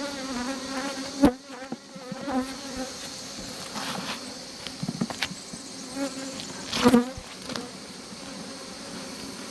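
Honey bees buzzing around an open hive: a steady hum, with single bees now and then flying close past. Two sharp knocks, about a second in and near seven seconds, stand out above the hum.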